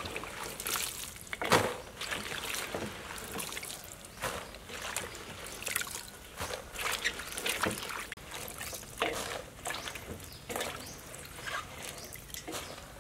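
Gloved hands washing a heap of fresh red chillies in a basin of water, scooping and stirring so the water sloshes and splashes irregularly. The loudest splash comes about a second and a half in.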